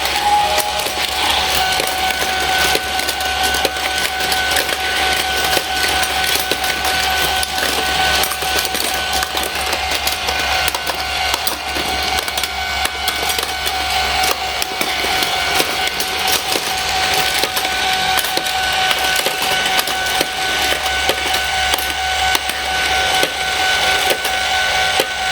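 Battery-powered Plarail toy train set running on its plastic track: a steady motor whine over a constant rapid clatter of plastic wheels, gears and track.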